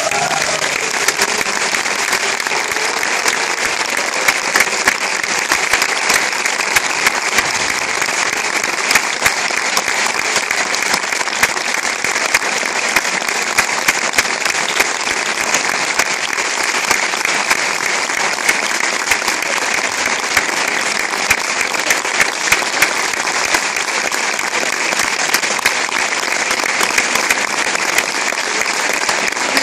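Audience applauding: many hands clapping in a dense, steady applause.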